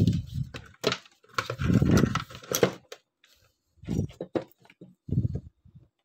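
Handling noise as the wound stator of a washing-machine spin-dryer motor is picked up and moved on the bench. Knocks, clicks and rubbing come in several separate bursts.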